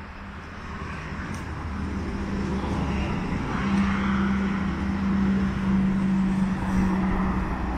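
A motor vehicle's engine running nearby, growing louder over the first few seconds and then holding a steady low hum.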